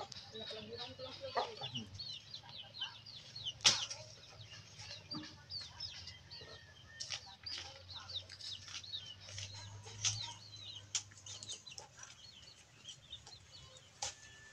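Wet feathers being pulled and rustled off a scalded chicken by hand, under many short, high chirps of birds repeating throughout, with a few sharp knocks, the loudest about four seconds in.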